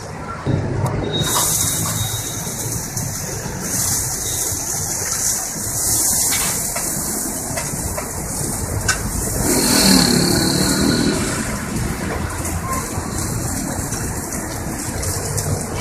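Food sizzling as it fries, a steady hiss that starts about a second in, over a low rumble that swells to its loudest around ten seconds in.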